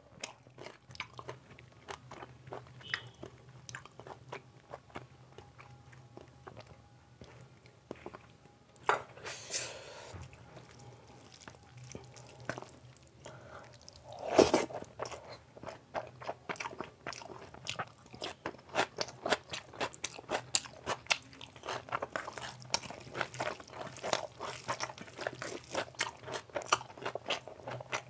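Close-miked eating by hand: fingers working rice and curry on the plate, then a handful pushed into the mouth about halfway through with a louder bite, followed by steady chewing in a dense run of short clicks.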